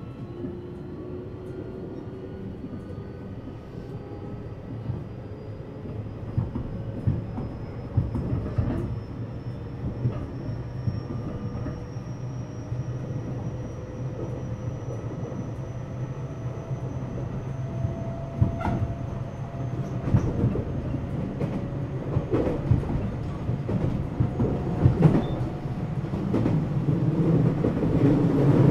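JR West 227-series electric multiple unit accelerating, heard inside its motor car: the inverter and traction motors give a whine that rises steadily in pitch, and the high part of it fades out about twenty seconds in. Wheel-on-rail running noise and rail-joint clicks grow louder as the train picks up speed.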